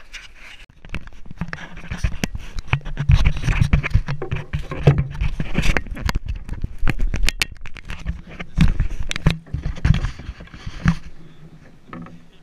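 Rapid close knocks, scrapes and crackles of gear being handled and bumping against a small boat's hull, with a low drone that comes and goes.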